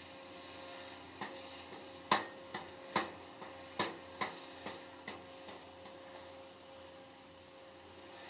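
A steady low hum with an irregular run of about ten sharp clicks and knocks between about one and six seconds in, the loudest in the first half of the run, then fading.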